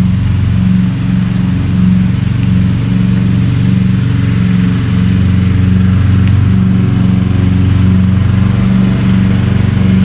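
An engine running steadily with a low hum that wavers regularly, about twice a second.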